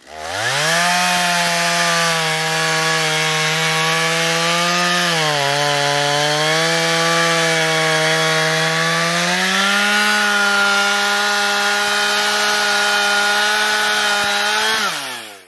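Stihl MS250 two-stroke chainsaw running at high revs while cutting into a fallen log. Its engine note dips briefly about five seconds in, climbs a step higher after about ten seconds, then winds down near the end.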